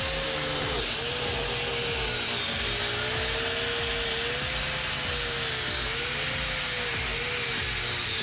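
Power tool spinning a wire wheel against welded steel, scrubbing off burnt paint: a steady scouring rasp over a motor whine that sags and picks up again every second or so as it is pressed into the work.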